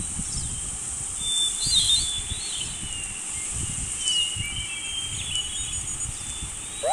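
Outdoor animal ambience: small birds chirping and whistling in short bursts over a steady high insect drone and a low rumble, with a quick falling call right at the end.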